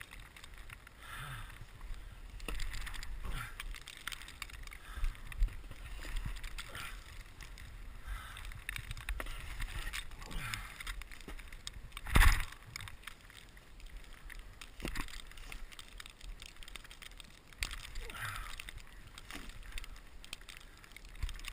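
Snow being shovelled: a run of irregular scrapes and crunches every second or two, with one loud knock about 12 seconds in. A low rumble runs underneath.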